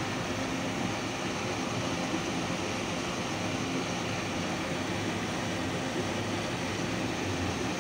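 Steady, even hissing noise with a faint low hum underneath, unchanging throughout, like running machinery or moving air and water.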